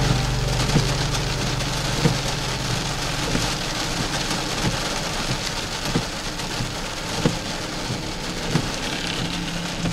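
Rain falling on a car's windshield and roof, heard from inside the car: a steady hiss with sharper single drop hits about once a second.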